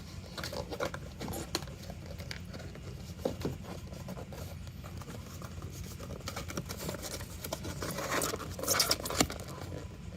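Cardboard display pieces being folded and tabbed together by hand: scattered scrapes, rubs and small knocks, busiest and loudest about nine seconds in.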